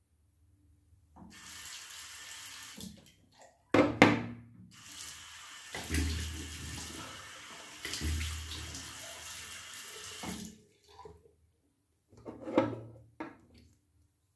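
Bathroom tap running into the sink in stretches, with loud splashes about four seconds in and again near the end, as water is used for rinsing during a wet shave.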